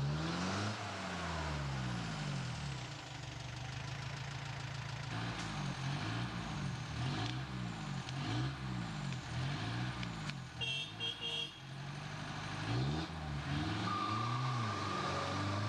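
Four-wheel-drive off-road vehicle engine revving up and down again and again as it labours through mud and undergrowth. A few short high beeps sound about eleven seconds in.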